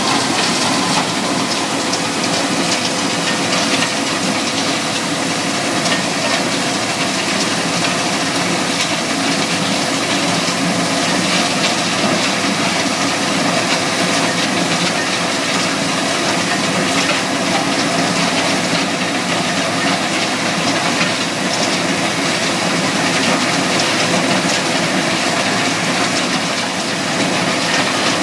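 Takeuchi TL12R2 compact track loader working a Simex PL 450 cutter attachment in a trench, with an industrial vacuum drawing off the spoil. The machinery runs steadily: a loud, even rushing noise over a constant hum.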